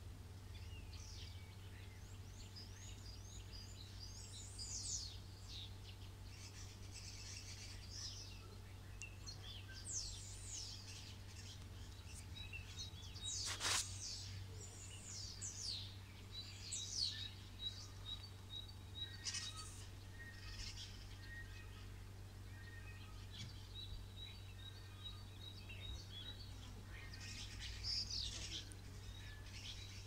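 Many songbirds chirping and calling together in an evening chorus. Among the chirps a rapid string of high, even pips comes twice, and a single sharp sound about halfway through is the loudest moment, all over a steady low hum.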